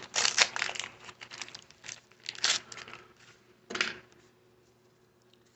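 Wax-paper wrapper of a 1982 Donruss baseball card pack crinkling and tearing, in a string of short bursts over the first four seconds.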